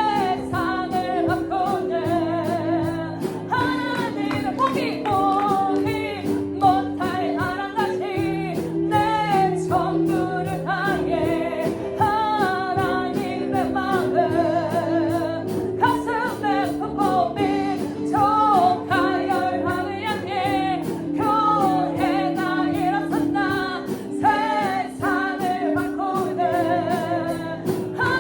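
Children's praise song: singing over band accompaniment with a steady beat.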